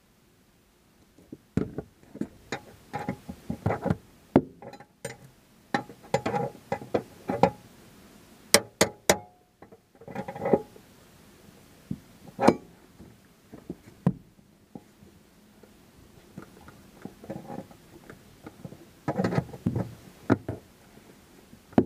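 Emergency scissor jack and its steel crank rod clanking, knocking and clicking in irregular bunches as the jack is cranked up against a stuck boat pedestal seat post, with a few sharp metallic clinks about halfway through.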